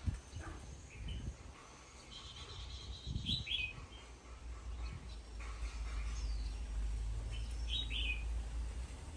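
Small birds chirping in two short bursts, about three seconds in and again near the end, over a steady low rumble that gets louder in the second half.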